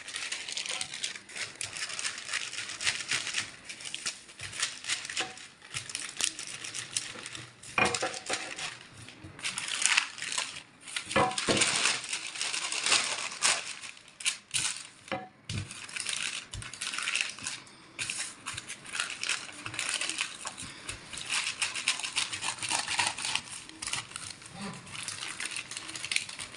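Baking parchment crinkling and rustling as a wooden rolling pin rolls shortcrust pastry dough between the sheets and hands smooth the paper, with a few sharp knocks now and then.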